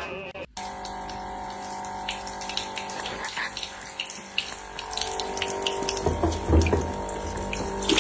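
Water running, as from a tap, with scattered light clicks and some louder low knocks near the end.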